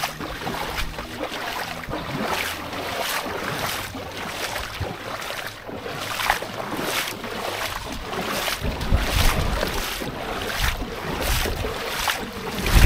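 Feet wading through flood water in regular strides, about one and a half splashing steps a second, with wind rumbling on the microphone at times.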